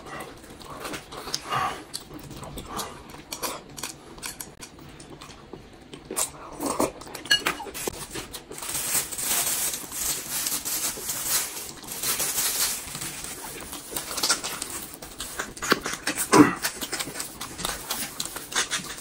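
Close-miked eating sounds: irregular chewing, slurping and sucking, with a few clicks of chopsticks against bowls and a stretch of hissy sucking in the middle.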